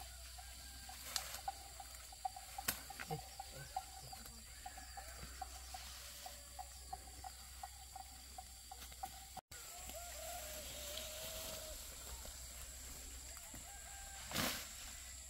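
Chickens clucking faintly in a run of short, repeated calls, with a few sharp knocks and a louder thump near the end.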